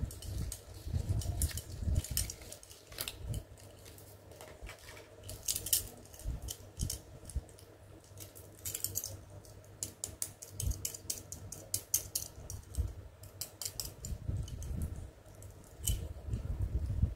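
Plastic beads of a toy Hello Kitty bead bracelet clicking and rattling against each other as it is handled, many light irregular clicks with soft handling bumps.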